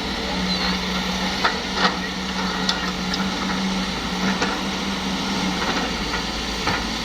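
Heavy-vehicle diesel engine running steadily, with several short sharp knocks and clanks over it.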